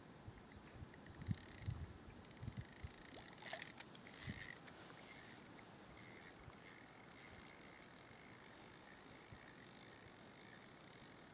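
Fishing reel and tackle being handled: a run of quick mechanical clicks and rattles with a few brief hissing swishes in the first few seconds, then only a faint steady hiss.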